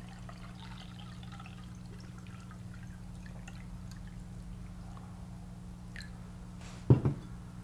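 Water pouring in a thin trickle from a glass measuring cup into a ceramic mug, with drips as the pour stops. One loud short thump about seven seconds in.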